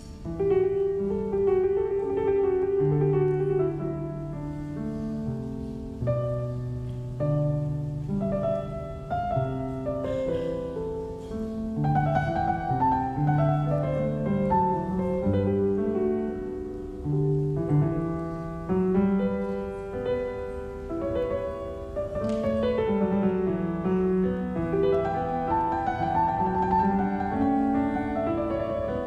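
Classical music played unaccompanied on a Steinway & Sons concert grand piano: chords in the bass and a moving melody, many notes sustained under the pedal.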